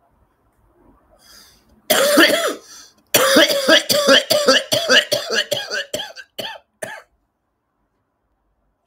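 A man's coughing fit between drags on a cigarette: one long cough, then a run of about a dozen quick coughs that trail off.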